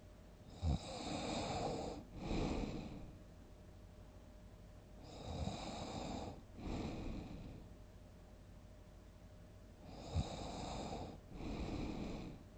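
A person snoring loudly, three breaths about five seconds apart. Each snore opens with a brief sharp low catch, runs for over a second, and is followed by a shorter second rush of breath.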